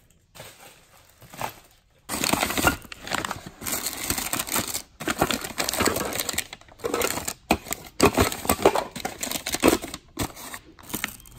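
Newspaper and brown packing paper crinkling and rustling as wrapped items in a box are dug through. It starts about two seconds in and comes in bursts with short pauses.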